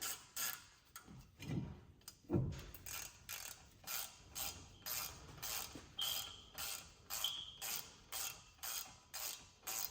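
Hand ratchet clicking in quick back-and-forth strokes, about two a second, driving the brake rotor's retaining screw back in. There are two brief squeaks past the middle.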